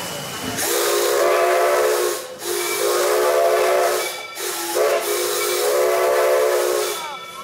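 A coal-fired steam locomotive's whistle blown three long blasts, a chord of several tones over a hiss of steam, heard from the passenger cars of the train it pulls.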